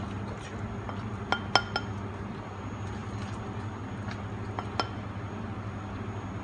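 A white ceramic soup bowl clinking as soup is ladled into it with a wooden spoon over a stainless steel pot: three ringing clinks about a second and a half in, two more near five seconds. A steady low hum runs underneath.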